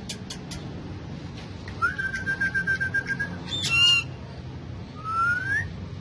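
Indian ringneck parrot calling. A few sharp clicks at the start, then a level whistle with a fast flutter lasting about a second and a half, a loud short harsh call about four seconds in, and a brief rising whistle near the end.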